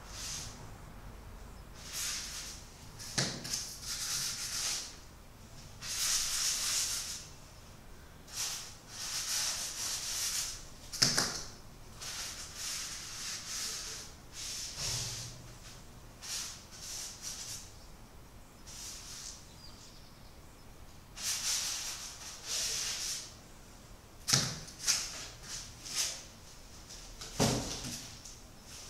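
Paintbrush strokes on canvas: irregular scratchy swishes of the bristles, each lasting about a second, with four sharp knocks among them, the loudest about a third of the way through.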